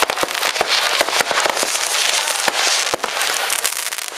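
Fireworks and firecrackers going off all at once: a dense, unbroken crackle of overlapping sharp bangs.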